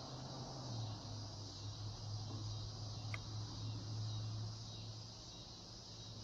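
Crickets chirping in a steady, high-pitched chorus over a low hum that cuts out about four and a half seconds in, with one short tick about three seconds in.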